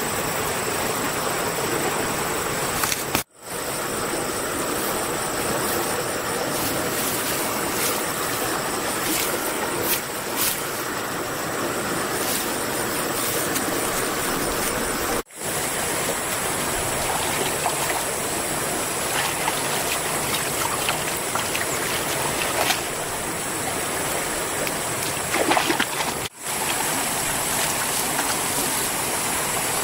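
Steady rush of flowing river water, dropping out briefly three times.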